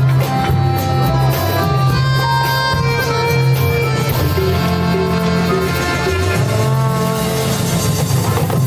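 Piano accordion playing a melody of held notes over a live band's accompaniment, with a steady pulsing bass underneath.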